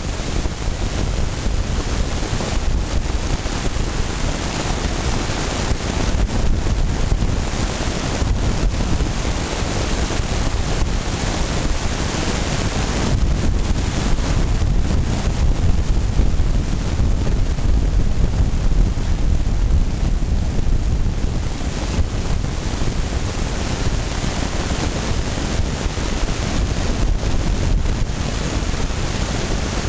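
Steady wind and road noise of a car driving at highway speed, heard from inside the car, with a heavy low rumble. It grows a little louder through the middle stretch.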